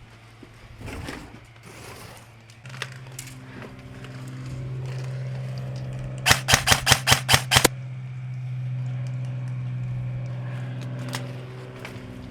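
Airsoft rifle firing a quick string of about eight sharp shots, lasting under a second and a half, just after the middle. A steady low hum runs underneath from early on.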